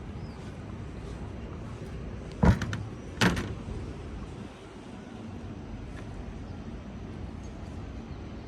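Two sharp knocks a little under a second apart, over a steady low rumble of background noise.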